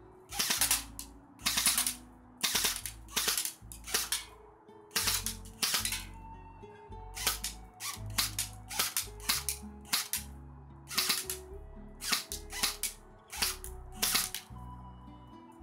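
Airsoft Thompson M1 rifle firing BBs in short, quick bursts again and again, each burst a rapid rattle of sharp cracks. Background music plays underneath.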